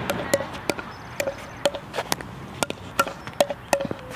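Pickleball rally: paddles striking the hollow plastic ball, and the ball bouncing on the hard court. A quick, irregular string of sharp pocks and taps, about two or three a second, many with a short ringing tone.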